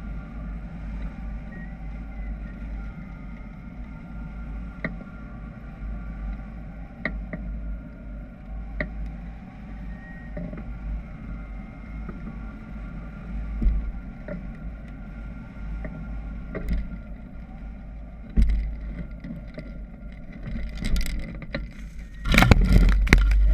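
Steady rush of airflow over a hang glider-mounted camera's microphone during a low glide, with a few light clicks. About 22 seconds in it turns into loud rustling and crashing as the glider touches down in a crop field and pushes into the plants.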